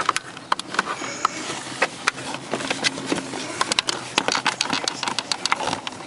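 Hands working a car door's plastic wiring connector free from the removed door panel: irregular clicks, taps and scrapes of plastic.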